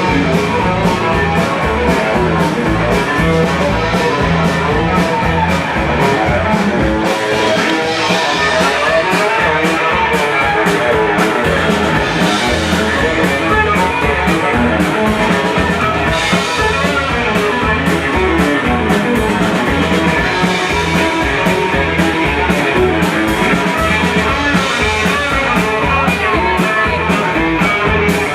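A live rock band playing a loud instrumental passage, with amplified strings over a drum kit keeping a steady beat.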